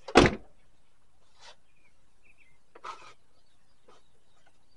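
A single loud thump, followed by two faint, brief rustles.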